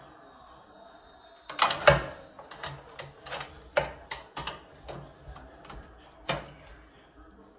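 Metal kitchen tongs clicking and scraping against a metal tray and wire rack while pulling apart roast pork shoulder: a sharp cluster of clacks about one and a half seconds in, then irregular taps for several seconds.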